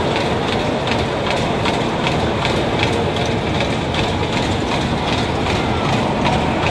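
Cars of a spinning carnival ride running at speed around their circular track, heard from on board: a steady rumble with the wheels clacking over the track joints in a quick even rhythm.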